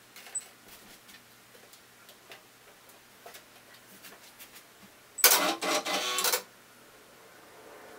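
Brother PR620 embroidery machine powering up: a few faint clicks, then, about five seconds in, its motors run loudly for just over a second as the mechanism initializes at start-up.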